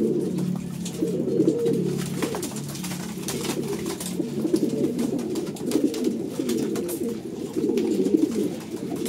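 A flock of racing pigeons cooing continuously, with light clicks of beaks pecking grain from a wooden feeding trough.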